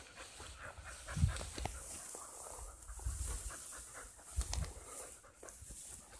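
Close, steady panting breaths, with crackling rustle from long dry grass and a few low thuds from footfalls or wind on the microphone.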